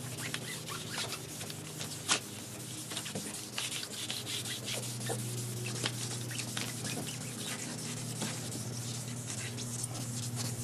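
Hand wet-sanding a foggy plastic headlight lens with 2000-grit wet/dry sandpaper: a continuous rubbing rasp of irregular strokes, with one sharper click about two seconds in.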